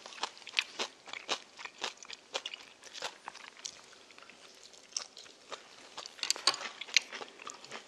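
Close-miked eating sounds: chewing and crunching bites, with scattered small clicks of chopsticks and spoons on ceramic bowls.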